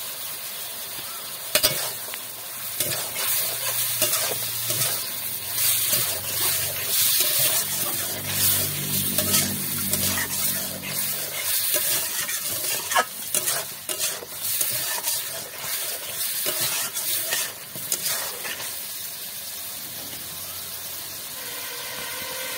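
Chicken pieces sizzling in hot oil in a metal karai, stirred and scraped with a metal spoon that clicks against the pan now and then. The stirring stops near the end, leaving only the sizzle.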